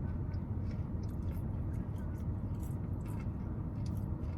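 Close-up chewing of fried chicken tenders, with small scattered mouth clicks, over a steady low hum.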